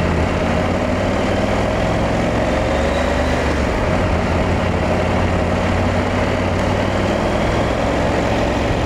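KTM 890 SMT's parallel-twin engine running steadily while riding through traffic, under a steady rush of road and wind noise; its pitch dips slightly and comes back up midway.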